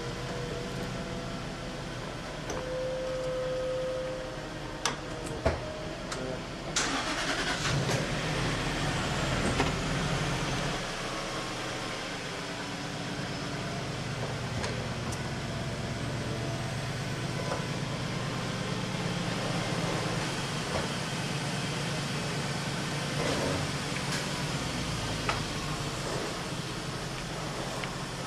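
A convertible's power-roof mechanism whines as the top folds, followed by two sharp clicks. About seven seconds in the car's engine starts, then runs steadily.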